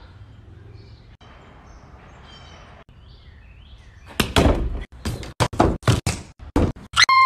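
Kicks and punches landing on a freestanding man-shaped rubber punching dummy: a rapid, irregular flurry of about a dozen hard thuds starting a little past halfway, after a few quiet seconds.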